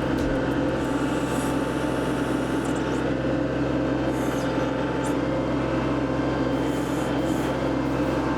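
Kubota compact tractor's diesel engine running steadily, a constant mechanical hum with a few faint clicks over it.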